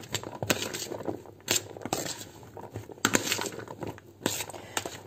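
A spoon stirring a bowl of diced boiled vegetables for vinegret: irregular soft wet clicks and scrapes as the pieces are turned over and the spoon scrapes the bowl.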